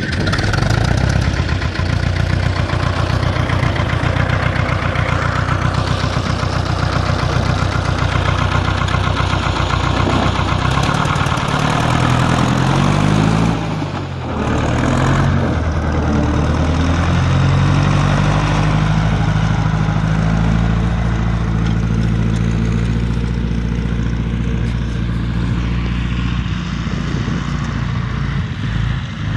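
Ursus C-4011 tractor's four-cylinder diesel engine running steadily, its pitch swinging up and down briefly about halfway through, then rising again near the end as the tractor drives off.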